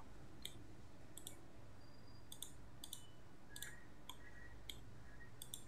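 Faint computer mouse clicks, one every half second to a second or so, over a low steady hum.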